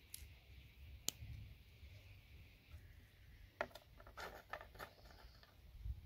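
Side cutters snipping through small plastic RJ45 connector pieces: one sharp click about a second in, then a short run of quieter clicks and snips near four to five seconds in.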